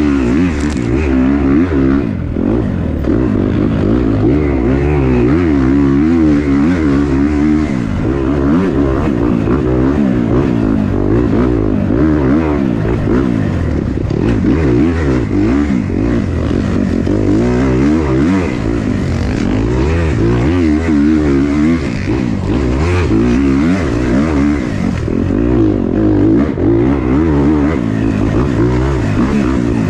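2024 Kawasaki KX250's four-stroke single-cylinder engine, heard close from on board, revving up and down without pause as the dirt bike is ridden hard along a woods trail.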